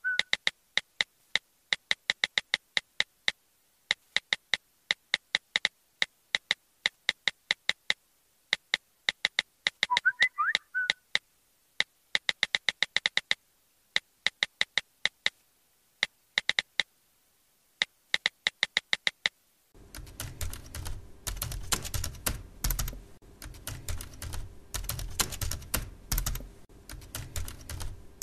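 Typing sound effect: runs of quick, crisp key clicks with pauses between them, and a short warbling sound at the start and again about ten seconds in. About twenty seconds in it changes to a denser, noisier typing recording over a steady low hum.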